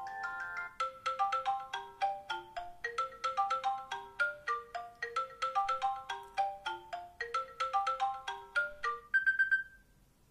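An iOS 7 iPhone ringtone playing: a fast, repeating melody of short bright notes. It ends on one high note that rings briefly and stops a little before the end. The tail of the preceding ringtone's chiming notes overlaps the first second.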